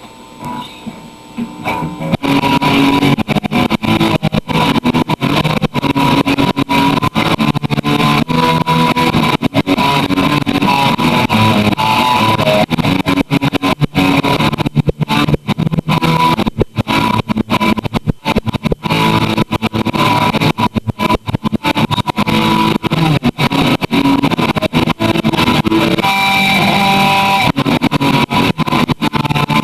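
Guitar being played in a loose jam, starting about two seconds in after a few short knocks and running on with constant notes and chords.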